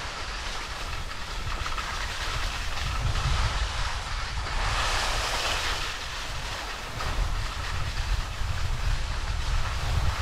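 Skis sliding over packed snow, a steady scraping hiss that swells about five seconds in, with wind rumbling on the microphone.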